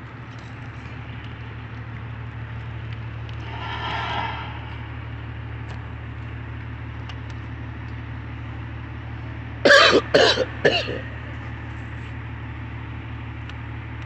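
A person coughs three times in quick succession about ten seconds in, over a steady low hum of idling vehicle engines. A brief swell of noise comes and goes about four seconds in.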